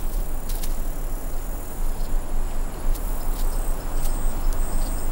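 Open-field ambience: a steady hiss with a low rumble, a few sharp clicks, and, in the second half, short high chirps about once a second, like an insect calling.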